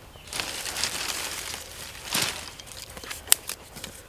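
Crinkling and rustling handling noise for about two seconds, followed by a few sharp clicks.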